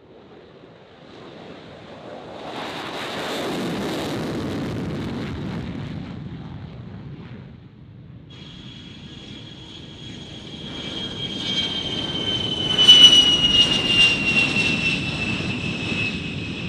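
F-16 fighter's jet engine noise swelling as it takes off and climbs away, then fading. After a short break comes the high whine of an A-10 Thunderbolt II's turbofan engines, slowly falling in pitch and loudest about two-thirds of the way through.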